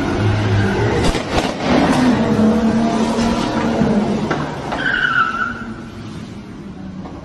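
SUV engine revving hard with tyres squealing as it rams and shoves parked cars, with several sharp crashes of impact. A loud squeal comes about five seconds in, and the noise fades toward the end.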